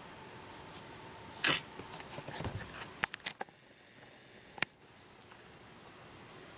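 A black kitten's mouth and breathing sounds as it tries to clear something from its mouth: one loud, short breathy burst about a second and a half in, then softer rustling bursts and a few sharp clicks of the mouth.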